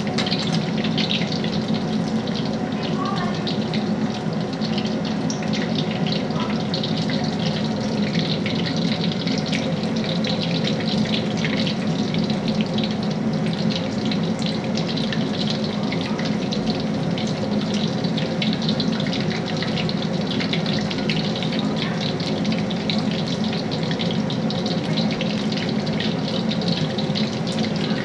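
Food deep-frying in hot oil in a wok: a steady sizzle full of small crackles, over a low steady hum.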